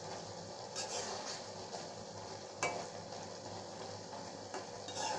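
Okra curry with mustard paste sizzling in a steel karahi as its cooking water nearly cooks off, with a spatula scraping and tapping against the pan a few times.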